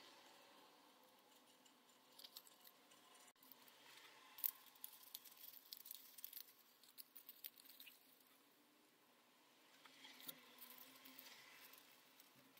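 Faint rustling and crinkling of thin copy paper as paper-craft parts are folded and pressed together by hand, with small scattered ticks, the sharpest about four and a half seconds in.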